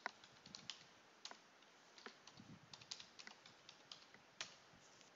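Computer keyboard typing: faint, irregular key clicks, with one louder click about four and a half seconds in.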